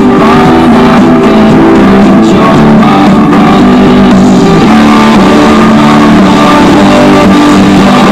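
Background rock music with guitar, loud and even.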